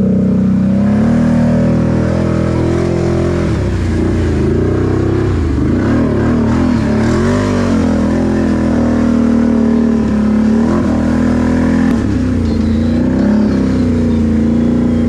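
Can-Am Renegade 1000R XMR ATV's V-twin engine running hard under load as the quad pushes through deep water, its revs rising and falling unevenly throughout.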